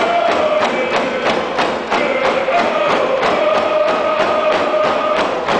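A large group singing a Coast Salish protocol song in unison, holding long notes, over hand drums beaten together in a steady beat of about three strikes a second.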